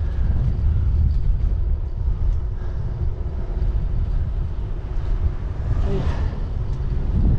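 Wind rumbling on the microphone over tyre and road noise while riding an e-bike that tows a cargo trailer. A brief louder rush comes about six seconds in.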